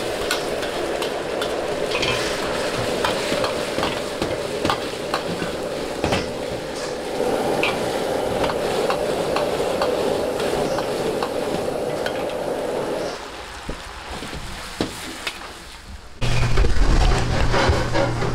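Sweet and sour pork being stir-fried in a wok: the sauce sizzles steadily while a metal ladle scrapes and clacks against the wok. The sizzle drops away about thirteen seconds in, and a louder steady low hum starts suddenly near the end.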